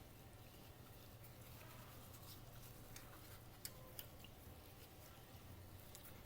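Near silence: faint low room hum with a few soft clicks around the middle.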